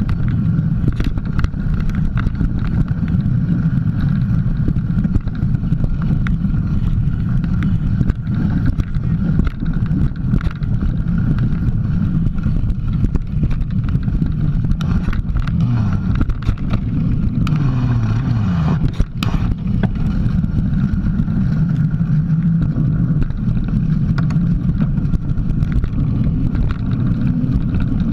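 Mountain bike riding a dirt trail, heard from a camera mounted on the bike: a steady heavy rumble of tyre and wind noise with frequent knocks and rattles from bumps in the trail. A brief wavering tone comes in a little past halfway.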